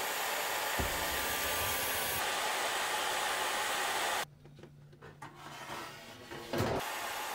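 Steady rushing air from a laser engraver's built-in air assist blowing on the cutting head. About four seconds in it drops away to a quieter stretch with a low hum and a few clicks, then the rushing air starts again near the end.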